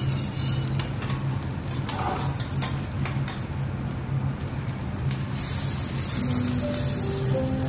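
A5 wagyu steak sizzling on a steel teppanyaki griddle, with scattered clicks and scrapes of metal spatulas against the griddle plate. A steady low hum runs underneath.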